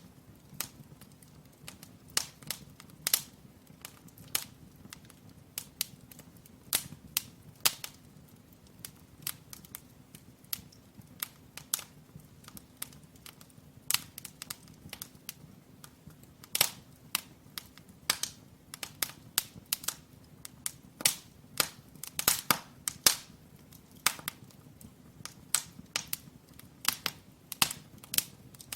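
Firewood burning in a brick fireplace, crackling with irregular sharp pops that come more often in the second half, over a faint low hum.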